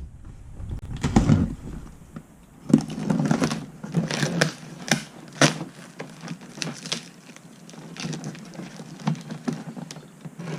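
Packaging of a mailed parcel being handled: irregular crinkles, rustles and light knocks, loudest in the first half.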